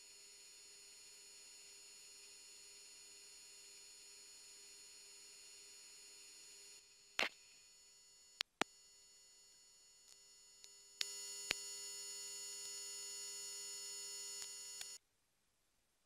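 Steady electronic hum and whine of several pure tones on the aircraft intercom audio line, broken by a few sharp clicks like a mic being keyed. Partway through it comes back louder, then cuts off suddenly near the end, leaving near silence.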